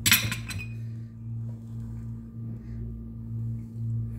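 Kitchen bowls or dishes clinking and knocking together for about half a second at the start, then a steady low hum.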